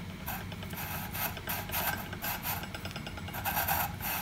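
Steel nut being spun by hand along the threads of a rusty railway bolt held in a vise, the threads grating in a quick series of short scratchy strokes, about three a second. The nut has been freed from rust by a soak in diluted hydrochloric (muriatic) acid.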